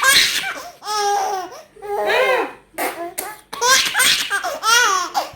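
Baby laughing heartily in repeated bursts, about one a second.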